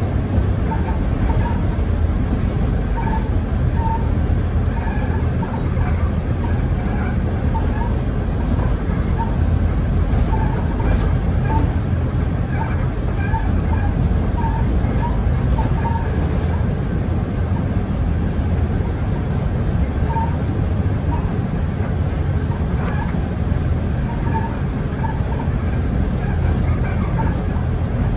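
Mercedes-Benz Citaro Facelift city bus on the move: a steady low engine and road rumble, with brief high squeaks scattered throughout.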